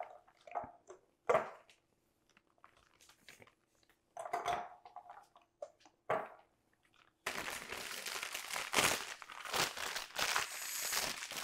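Pastry bag being filled with lemon curd: a few light knocks and scrapes, then from about seven seconds in a steady crinkling of the bag as it is handled.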